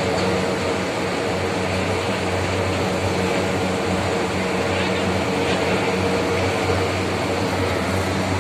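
Steady mechanical drone of sugar-mill cane-handling machinery, the cane carrier conveyor and crane running, a continuous hum with a deep throb and an even level.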